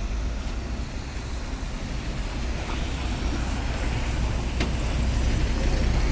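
LiAZ-5292.22 city bus's diesel engine rumbling low as the bus draws up close alongside, growing steadily louder.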